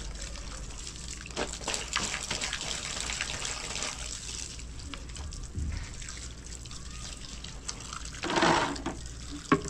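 Water running steadily from an outdoor wall tap onto concrete while wet clothes are rinsed and wrung by hand in the stream. There is a brief louder burst just past eight seconds and a sharp click near the end.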